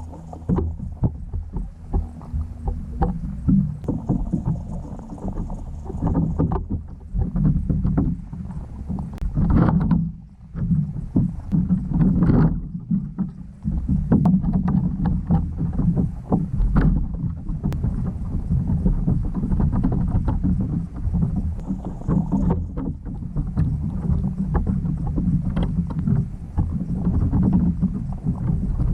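Underwater noise picked up by a GoPro in its waterproof housing submerged in a river: a steady low drone with many small clicks and crackles, dipping briefly about ten seconds in.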